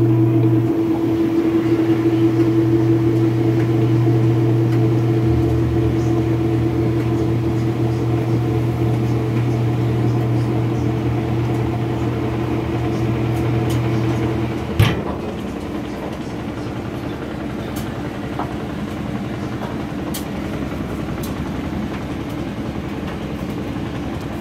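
Maytag washing machine running with a loud, steady motor hum, and one sharp clunk about fifteen seconds in, after which the hum turns quieter. The clunk comes as the washer goes from agitation into spin, and the owner does not know its cause.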